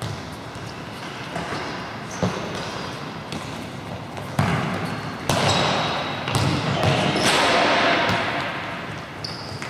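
Futsal balls being kicked and bouncing on a sports-hall floor: irregular sharp thuds that ring on in the hall, with a few short high squeaks.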